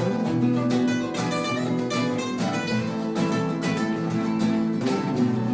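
Background music: an acoustic guitar playing plucked and strummed notes in a flamenco-like style.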